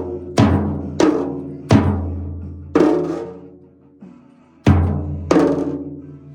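Deep, pitched drum struck six times at an uneven pace, each stroke ringing out and fading over about a second.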